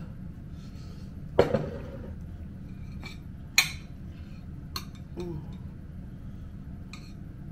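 A utensil clinking and knocking against a dish about five times, the loudest about a second and a half in.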